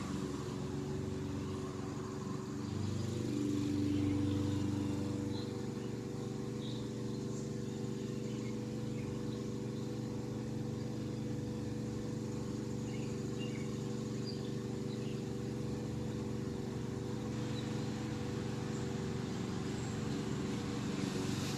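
A motor running steadily in the background: a low hum made of several steady tones, swelling slightly a few seconds in, with a few faint high chirps above it.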